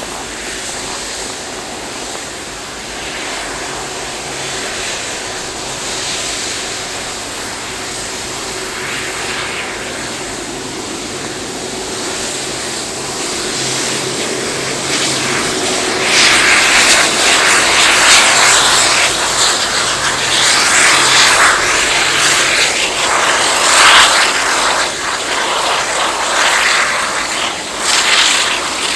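Airbus A330 jet engines at taxi power: a steady hum that builds, then from about halfway through a much louder, fluctuating rush as the airliner taxis past.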